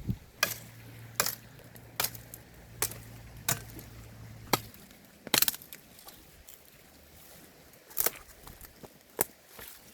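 Knife chopping on a cutting board: single sharp cuts about one a second, thinning out in the second half. A faint low hum stops about halfway through.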